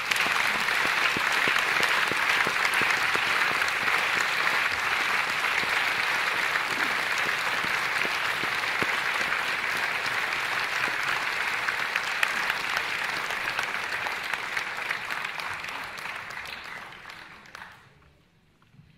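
Audience applauding, a dense steady clapping that thins out and stops about a second before the end.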